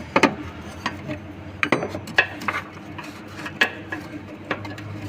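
Light metal clinks and knocks, about eight scattered across the few seconds, as a steel cover plate is set in place over the car's fuel pump, over a steady low hum.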